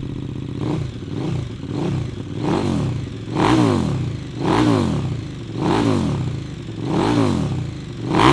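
KTM 1290 Super Duke R's 1301cc V-twin idling and being revved in a series of throttle blips, each rising and falling back, about one a second. The blips grow higher from about three seconds in.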